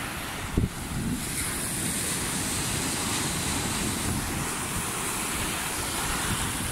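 Surf washing and foaming over a rocky reef, a steady rush of water with wind buffeting the microphone. A single brief thump about half a second in.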